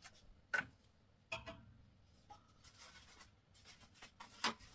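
Faint handling sounds: a few short clicks as a plastic nail polish remover bottle is twisted open, then soft rustling as toilet paper is pulled off the roll, with a sharper, louder sound near the end as the paper is torn.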